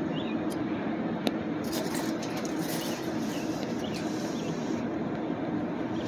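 Steady low rumbling background noise, with a few faint clicks and taps.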